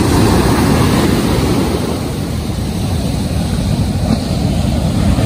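Rough surf breaking and washing on a sandy beach: a steady, loud, low rumble of waves, with wind buffeting the microphone.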